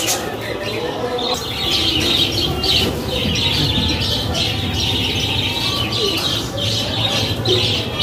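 A flock of budgerigars chattering and chirping, many birds at once, with some wing flapping as they fly about a large aviary just after being released into it.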